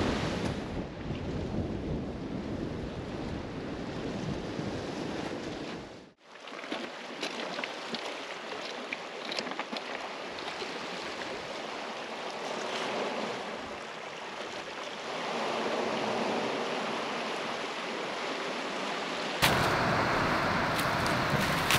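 Wind on the microphone and waves washing against a rocky shoreline, a steady rushing noise that drops out briefly about six seconds in.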